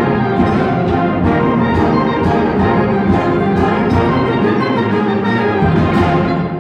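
Live student concert band playing, with saxophones, trombones and percussion, the brass and winds sounding together over regular drum strokes. The music cuts off right at the end and begins to ring away in the hall.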